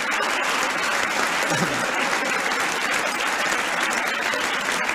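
Large audience applauding and laughing: dense, steady clapping mixed with laughter.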